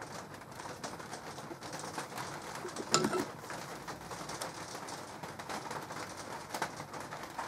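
Faint clicks and handling of small steel measuring tools, a telescopic bore gauge being set against a micrometer, with one sharper click about three seconds in.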